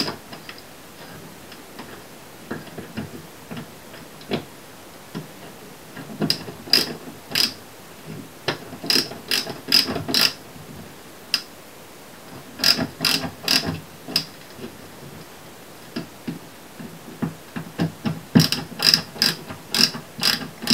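Ratchet screwdriver clicking in several short runs of a few clicks each, with pauses between, as it turns the light switch's mounting screws.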